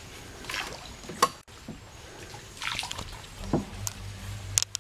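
Water splashing and dripping in short irregular bursts beside a small hand-rowed boat moving slowly along a calm canal, as the rowing strokes dip into the water. A low steady hum comes in about three and a half seconds in.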